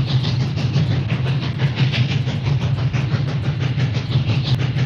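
Cartoon train sound effect: a steam train running along the track with a steady, fast rattle of wheel clicks.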